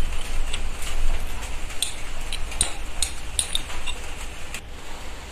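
Scattered light metallic clinks and ticks of a socket wrench and extension being handled and pulled off a diesel engine's cylinder-head bolts, at irregular intervals, with a low rumble underneath in the first second or so.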